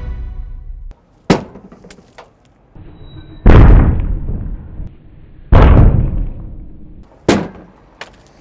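Rocks thrown against a polypropylene vandal guard on an excavator cab window: a sharp knock, then two heavy hits about two seconds apart, each trailing off over about a second, then another sharp knock.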